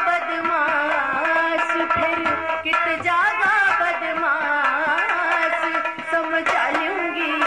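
Haryanvi folk ragni music from a live ensemble: a wavering, ornamented melody line over a steady drone, with hand-drum strokes keeping the rhythm.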